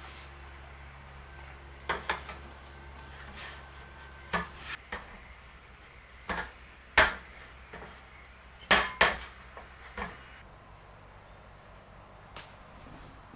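Stainless steel mixing bowl knocking and clanking on a wooden table as pizza dough is mixed and kneaded by hand in it. The knocks are sharp and irregular, the loudest a close pair after the middle.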